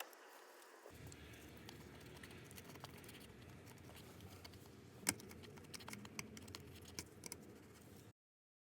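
Faint scattered clicks and taps of a screwdriver and small door switches being handled while the switches are unscrewed, with one sharper click about five seconds in. The sound cuts off abruptly near the end.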